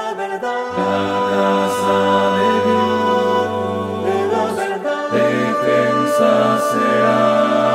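Mixed four-part choir singing the chorus of a Spanish hymn, holding long chords in several voices; the lowest part moves to a new note about five seconds in.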